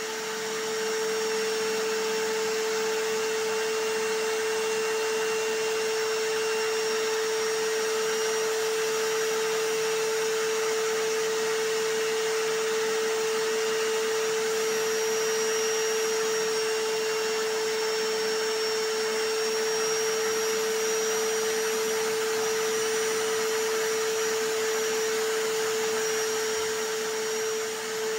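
Vacuum cleaner noise layered with a hammer drill, running steadily without a break, with a strong constant hum over an even rushing noise.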